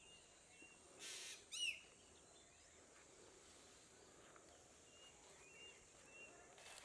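Quiet rural ambience with faint bird calls. There is a brief rustle about a second in, then one arching high chirp, and a few thin, high peeps in the second half.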